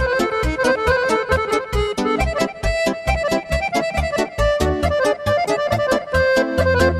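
Piano accordion and a Korg Pa3X arranger keyboard playing a fast Balkan kolo, the accordion melody over a quick, steady beat of about five to six strikes a second. A heavier bass comes in near the end.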